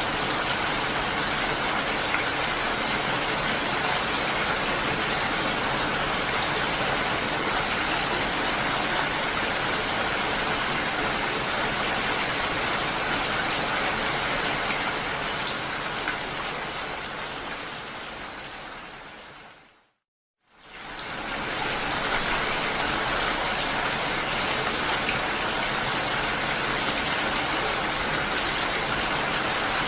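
Steady rain falling. About two-thirds of the way through it fades out to a moment of silence, then fades back in.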